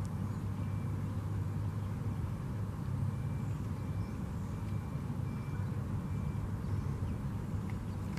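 Steady low outdoor rumble, with faint, short high-pitched peeps repeating now and then.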